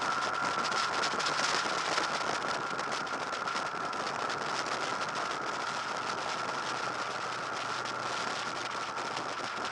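Wind rushing over a motorcycle-mounted camera's microphone at road speed, with a Honda VFR800 VTEC's V4 engine running steadily underneath and a steady high whine.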